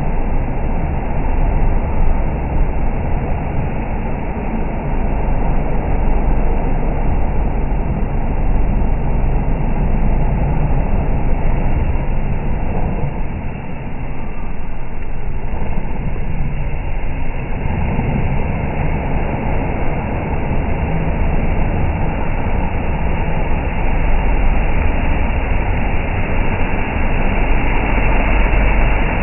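Can-Am Maverick X3 side-by-side's turbocharged three-cylinder engine running hard with spinning tyres churning mud, heard slowed down as a deep, drawn-out rumble. It eases briefly around the middle, then grows loud again as the machine comes close near the end.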